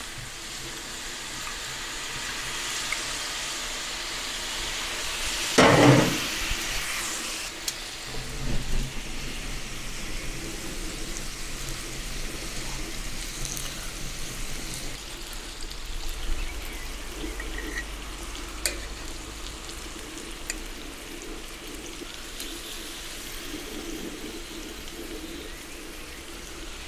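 Cinnamon whisky poured onto a hot gas flat-top griddle, sizzling hard over sugared pineapple slices and pork belly as it is flambéed. There is one loud short burst about six seconds in. After that the sizzle settles to a quieter hiss with a faint low rumble.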